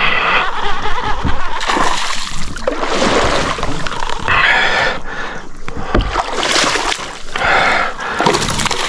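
Water splashing in repeated bursts of about a second each as a hooked peacock bass (tucunaré-açu) thrashes at the surface beside a kayak.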